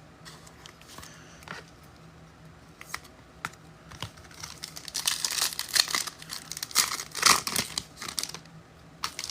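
Light clicks of trading cards being handled, then from about five seconds in a card pack's wrapper being torn open and crinkled.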